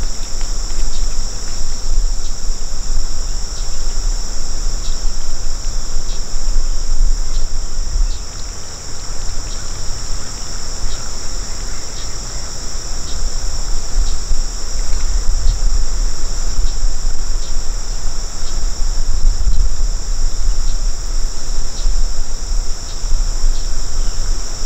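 Steady, high-pitched chorus of insects that does not let up, with faint ticks now and then, over a loud low rumble.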